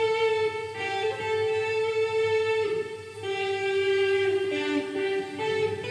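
Godin Redline HB electric guitar, freshly given a pro setup, played through an amp: a slow lead melody of single notes, each held for about a second.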